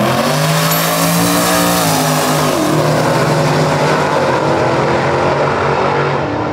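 Two Dodge muscle cars, a black Challenger and a white Charger, launching off a drag strip's starting line and accelerating hard at full throttle. The engine note climbs, dips briefly about two seconds in, then pulls on.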